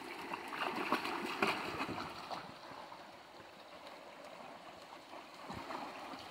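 Shallow rocky stream running, with a dog's feet splashing through the water in the first couple of seconds; after that the stream goes on alone, quieter.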